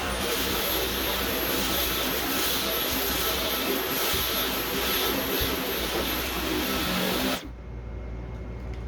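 Dyson V11 Pro cordless stick vacuum running steadily, a rushing hiss with a thin high-pitched whine, until it cuts off suddenly about seven seconds in.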